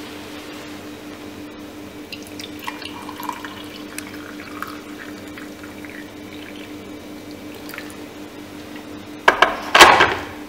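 Hot water poured from an electric kettle into a ceramic mug holding a tea bag, with faint trickling and dripping over a steady low hum. Two loud knocks come near the end.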